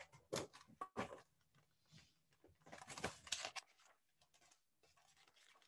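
Faint rustling of a hardcover picture book's paper pages being turned and the book handled, in two short spells, near the start and again about three seconds in.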